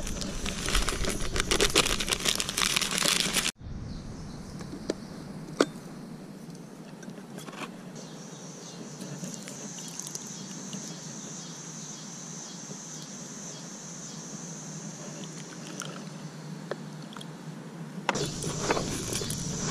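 Paper oatmeal packet crinkling and tearing as it is opened and emptied into a bait can, cutting off abruptly about three and a half seconds in. Then a quieter stretch with a steady high-pitched hiss and a few light clicks and taps as the bait is mixed, and louder handling noise returns near the end.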